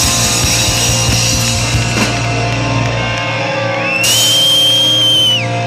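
Live heavy rock band playing loud distorted electric guitars, bass and drums. The drums stop about three seconds in while the guitars ring on. A high, steady squeal enters about four seconds in and slides down just before the end.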